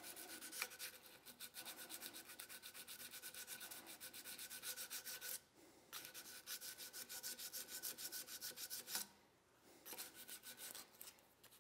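Small hand file rubbing back and forth over the steel side of a revolver's grip frame in quick, faint, even strokes to flatten out machine tool marks. It stops briefly about halfway through and again a few seconds before the end.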